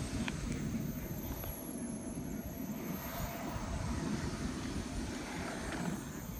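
RC model jet's small turbine engine whining at low power as the jet taxis along the runway, a high whine that sinks and then climbs again. Heavy wind rumble on the microphone underneath.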